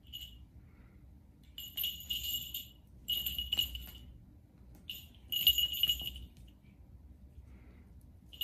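Small bell on a cat's collar jingling in several short bursts as the cat pounces and scrambles after a laser dot; the loudest burst comes about five and a half seconds in.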